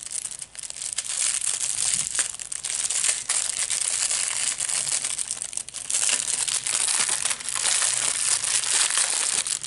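Clear plastic packaging crinkling and crackling as a bag of small packets of diamond-painting drills is handled and opened: a dense, continuous crackle of small clicks.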